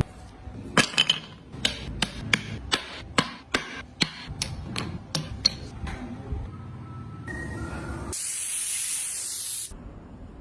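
Sharp tapping strikes, about three a second for some five seconds, then about eight seconds in a burst of spray hiss lasting about a second and a half.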